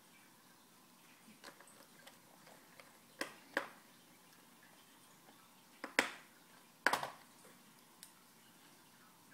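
Small screws and a screwdriver being handled as the screws go back into a laptop screen's mounting holes: scattered faint ticks, with four sharper clicks a little past the middle.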